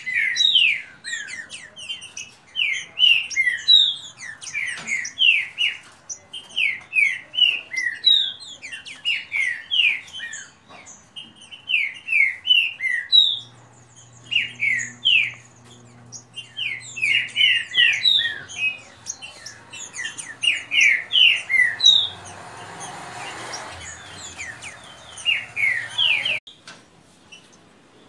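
Two caged green-winged saltators (trinca-ferro) singing against each other in a song contest: quick, overlapping phrases of loud, clear whistled notes with short gaps between them. The singing stops about a second and a half before the end.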